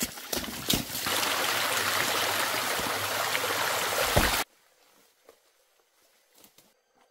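Small rocky forest stream splashing and running steadily over stones, starting about a second in and cutting off abruptly after about three and a half seconds. Before it come a few snaps and rustles of branches and leaves; after it, near quiet with faint rustles of foliage.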